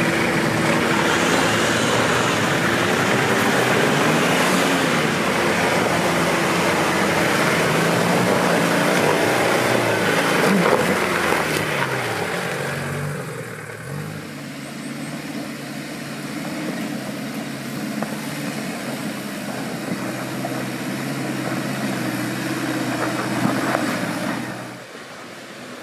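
Off-road 4x4's engine working under load, its pitch rising and falling through the first half. It settles quieter and steadier after about thirteen seconds, and the sound cuts off abruptly near the end.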